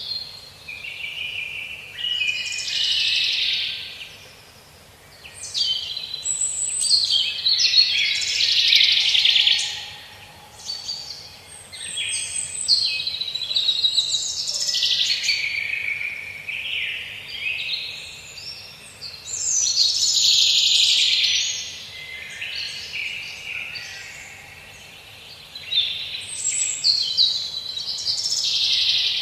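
Songbirds singing and chirping, several quick overlapping phrases coming in bouts of a few seconds with short lulls between.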